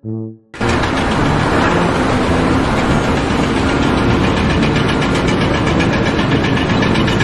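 A loud engine running steadily with a fast, even pulsing, typical of construction machinery. It starts abruptly about half a second in, right after a short musical note.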